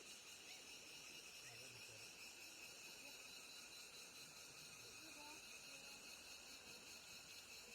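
Faint, steady chorus of insects, a continuous high trill in several layered pitches that runs without a break.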